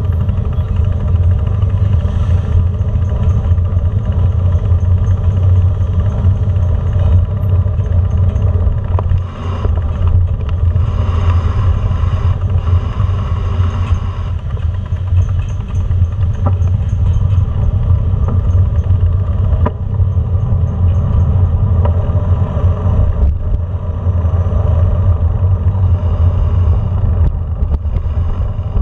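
Steady low hum of a small vehicle's motor while it is ridden slowly, with a few light knocks.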